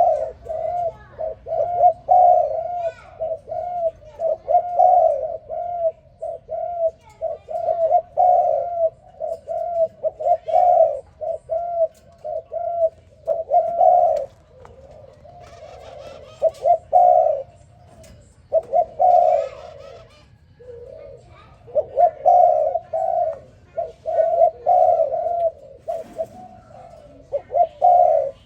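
Spotted dove cooing: repeated phrases of low, soft coos, broken by a couple of short pauses in the middle.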